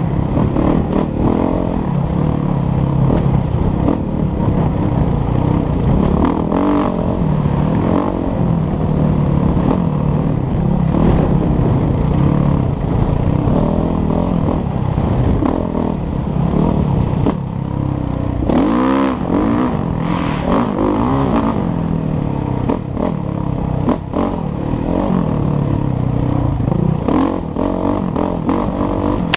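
Kawasaki KX450F dirt bike's four-stroke single-cylinder engine running under load, its pitch rising and falling as the throttle opens and closes, with a sharp rev up and back down about nineteen seconds in. Knocks and rattles from the bike on the rough trail come through over the engine.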